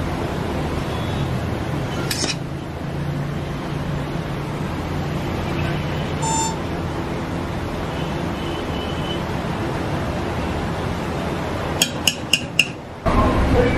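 Metal ladle and spoon clinking against a large aluminium cooking pot and plate while rice is served, over a steady low background rumble. A few single clinks, then a quick run of four near the end, followed by a sudden burst of louder noise.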